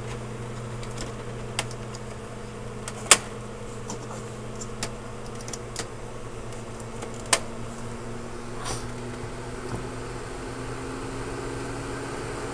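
Retrotec blower door fan running with a steady hum, its pitch starting to climb over the last few seconds as it ramps up to hold the house at 50 pascals. Two sharp knocks, about three and seven seconds in, come as rubber covers are pressed into the fan's openings.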